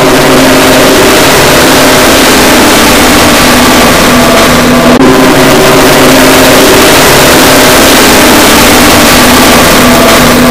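Heavily distorted, clipping audio from many stacked, overlapping copies of the same clip: a dense, harsh noise with steady held tones under it, and a brief dip about five seconds in.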